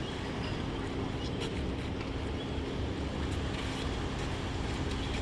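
Steady outdoor background noise: a low rumble with a faint steady hum and a few light ticks.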